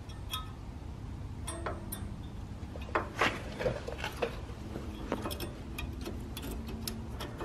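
New front brake pad's metal backing plate clicking and clacking against the caliper bracket's metal clips as it is worked into place, several light clicks with the loudest about three seconds in, over a low steady background hum.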